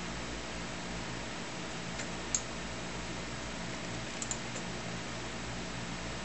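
Steady computer fan hum, with a few sharp mouse-button clicks: a pair about two seconds in and another pair just after four seconds in.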